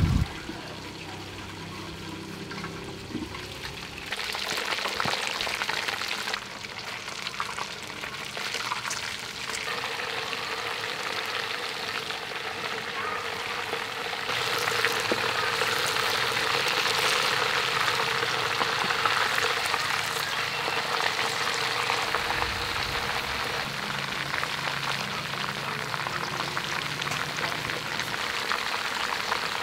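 Whole barracuda frying in hot oil in a wok: a steady crackling sizzle that starts a few seconds in and grows louder around the middle.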